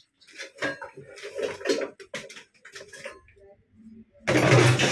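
Metal cooking pots and utensils clattering and knocking as they are lifted and moved about, a quick run of short knocks over the first three seconds. A man's voice cuts in loudly near the end.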